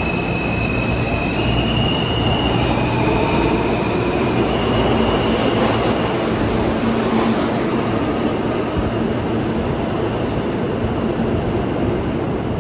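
R160 subway train running on the track: a steady rumble of wheel and motor noise. Through the first half a high propulsion whine shifts pitch in steps.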